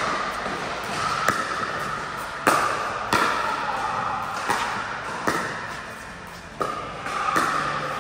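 Pickleball paddles striking a hard plastic ball in a doubles rally: about six sharp pops, roughly a second apart.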